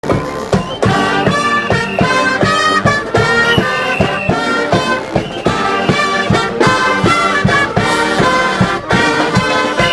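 Street brass band playing: trumpets and trombones over a steady drum beat.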